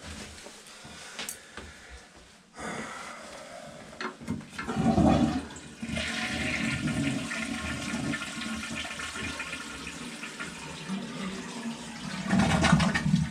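Vintage 1930s American Standard toilet flushing. A few clicks and knocks come first, then a loud gurgling surge about four seconds in, then water rushing steadily through the bowl, swelling again near the end.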